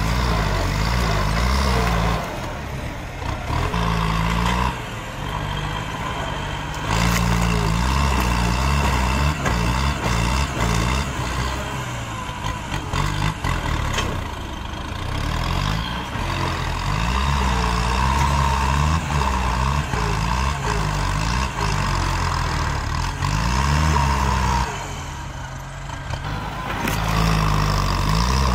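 Kubota tractor's diesel engine working under load as its front dozer blade pushes against a tree stump, the engine note rising and falling as it strains. It eases off three times for a couple of seconds before pulling hard again.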